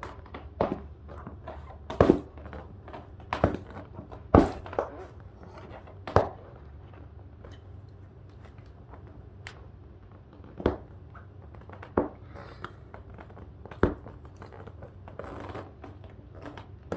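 Flathead screwdriver tip prying and scraping at the edge of a glued-on patch on an inflated vinyl pillow: a series of sharp clicks and knocks, a second or two apart, with quieter scraping between them.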